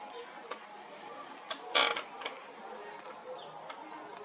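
Scattered light clicks and one short, louder creak a little under two seconds in.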